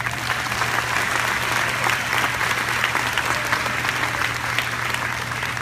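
Large seated audience applauding, many hands clapping at once, swelling quickly and thinning out near the end. A steady low hum runs underneath.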